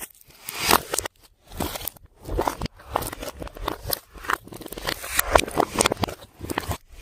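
Slime being kneaded and squished by hand, with dense, irregular crackling and popping clicks and short pauses between handfuls.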